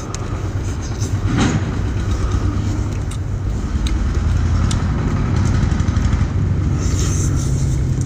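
A steady low rumble, with a few short sharp cracks and clicks as the shell of a boiled lobster is broken apart by hand.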